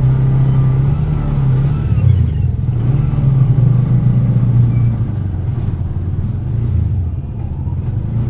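Motor vehicle engine running during a ride: a steady low drone whose pitch drifts slightly up and down.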